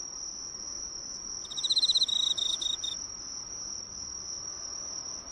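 Crickets singing: a steady high-pitched trill throughout, joined about a second and a half in by a rapid pulsed chirping phrase of a slightly lower note that lasts about a second and a half.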